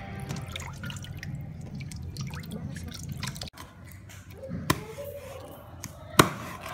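Water splashing and dripping as hands wash greens in a metal basin, then two sharp chops of a cleaver through a fish onto a wooden chopping board, the second chop the louder.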